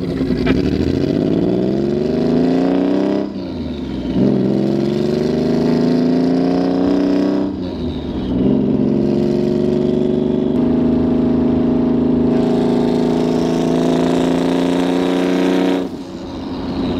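Turbocharged Subaru EG33 flat-six in a WRX STI, heard from inside the cabin, pulling up through the gears. Its pitch climbs twice with upshifts about three and seven and a half seconds in, then rises slowly and holds nearly steady before dropping off near the end.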